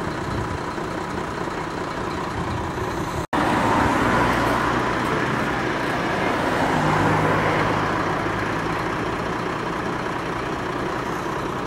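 Road traffic noise with a vehicle engine running, cut off for an instant about three seconds in; after that a steady low engine hum swells and eases off.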